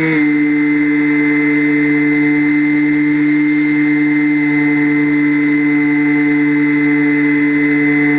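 Electric motors and propellers of an FPV aircraft running at a steady throttle, a loud droning whine whose pitch dips slightly just after the start and then holds steady.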